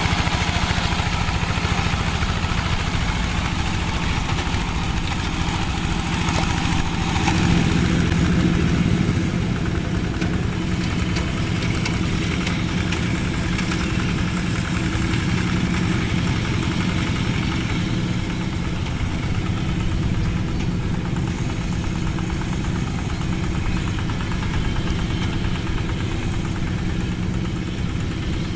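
Two-wheel walking tractor's diesel engine running steadily under load as it pulls a plough, a little louder for a moment about eight seconds in.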